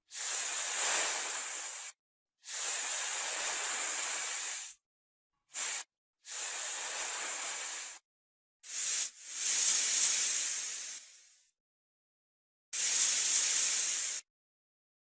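Snake hissing: a series of about seven separate hisses, most one to two seconds long and two of them very short, with silent breaks between.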